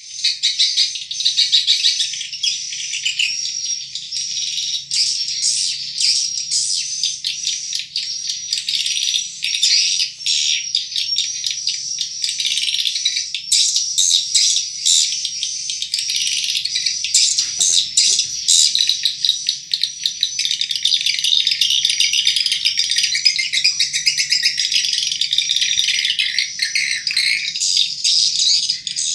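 Recorded swiftlet calls: a dense, continuous twittering of many high chirps, played as a 'suara inap' (roosting) lure call for a swiftlet house.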